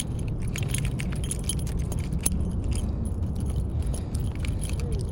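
Irregular light metallic clicks and clinks, like fishing tackle being handled, over a steady low rumble.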